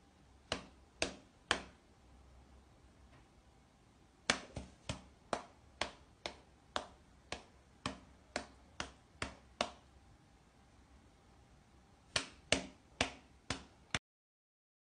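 Sharp clicks at a steady beat of about two a second, in three runs: three near the start, about a dozen in the middle, and five near the end, over faint room tone.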